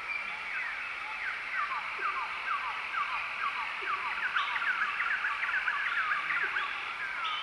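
A chorus of chirping animal calls: short whistles sliding down in pitch, about two a second, with a quicker run of rising chirps in the middle, over a steady high drone.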